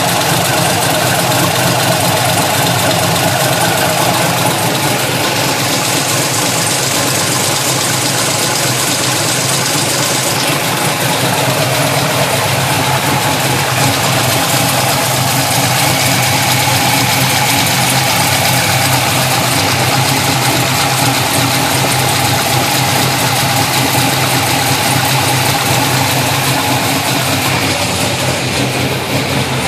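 Pontiac GTO's V8 engine idling steadily with a tick, which the owner takes for a lifter gone bad.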